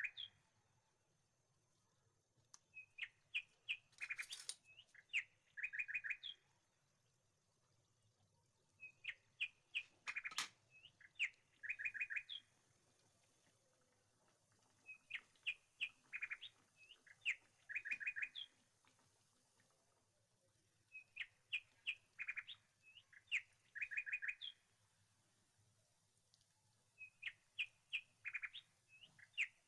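Bird chirping: a short phrase of quick high chirps that repeats almost identically about every six seconds.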